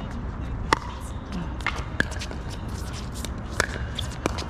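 Pickleball paddles hitting a plastic ball during a serve and rally: four sharp pops, each a second or so after the last, with fainter pops from neighbouring courts.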